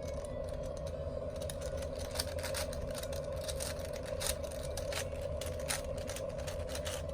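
Plastic 4x4 Rubik's cube being turned, its layers clicking and rattling in irregular runs as the edges are paired, over a steady hum.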